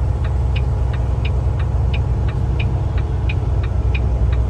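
Car engine and road rumble heard from inside a vehicle, with sharp, even ticking about three times a second running over it.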